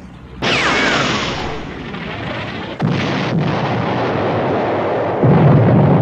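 Three heavy cannon blasts from a military tank sound effect, about two and a half seconds apart, each trailing off in a long rumble. The last blast is the loudest.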